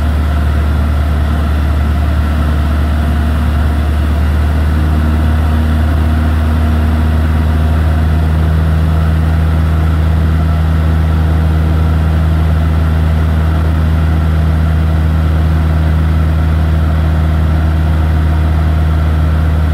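Van's RV-7A light aircraft's piston engine and propeller droning steadily, heard inside the cockpit. A faint higher hum above the drone shifts in pitch about five seconds in.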